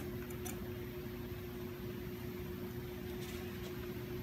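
Steady hum of running shop machinery with one constant tone, with a few faint light clicks about half a second in and about three seconds in as the router bit and collet nut are handled at the stopped spindle.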